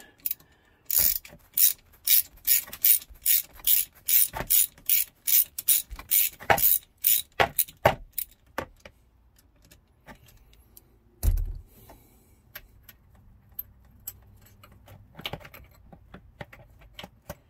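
Ratchet wrench with a 5/16 socket clicking in a quick run of strokes, about three clicks a second, while working loose the bolts on the oil filter cap. The clicking stops, and a few seconds later there is a single dull thump.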